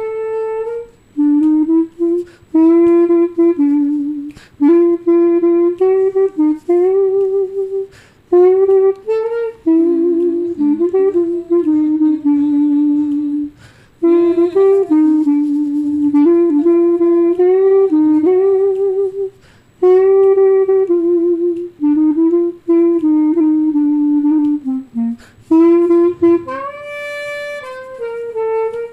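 Solo clarinet playing a slow melody in short phrases, with brief pauses between them.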